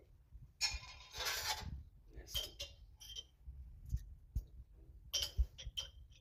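Dishes and utensils being handled in a kitchen: a few short clinks and knocks, some ringing briefly, with a short rustling noise about a second in.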